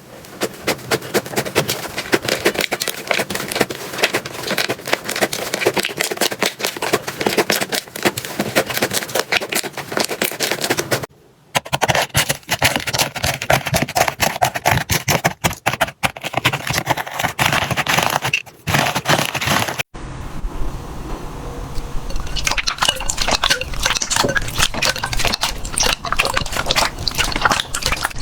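Slime being squeezed and poked by hand, making dense, rapid crackling and popping clicks, in a run of clips separated by brief breaks about 11, 18 and 20 seconds in.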